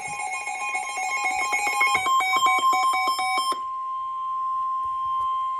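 Emergency alert attention tones announcing a flash flood warning: two steady high tones sound together, break into a fast pulsing beep about two seconds in, and give way to a single steady tone for the last couple of seconds.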